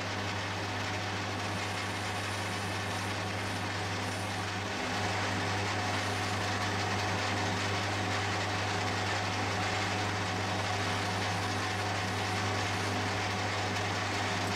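Metal lathe running steadily with the chuck spinning: a constant motor hum under a broad mechanical whir, a little louder from about five seconds in.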